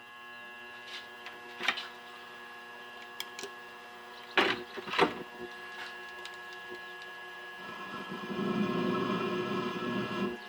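A metal lathe running with a steady whining hum. A few sharp knocks or scrapes come around the middle. Roughly three-quarters of the way in, a louder, rougher noise joins the hum as the pointed insert cuts the angle on the end of the part.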